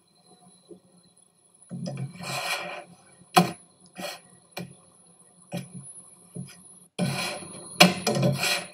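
Black slotted plastic spatula scraping under a naan in a nonstick frying pan and knocking against the pan: two stretches of scraping, with three sharp knocks in between. Faint background music underneath.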